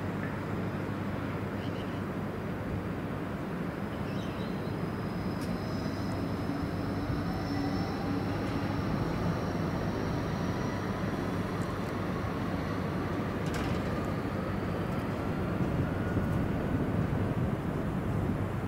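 A large tracked demolition excavator's diesel engine and hydraulics running steadily, a low rumble, with a faint whine rising slowly in pitch through the middle and a single sharp click about two-thirds of the way in.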